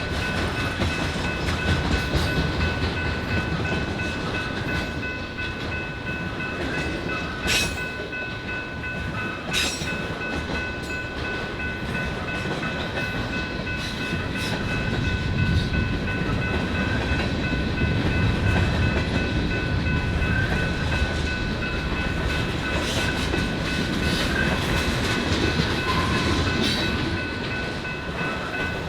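Freight train rolling past: a steady low rumble of wheels on rail with occasional sharp clicks, and several steady high-pitched tones held over the top.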